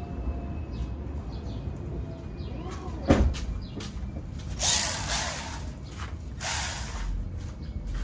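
Tool work on metal car parts: scattered small clicks and knocks, a sharp metal clank about three seconds in, then two short hissing bursts a little over a second apart.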